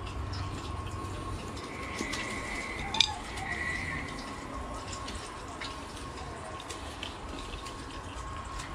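Quiet background with a faint steady hum, scattered light clicks and one sharper click about three seconds in.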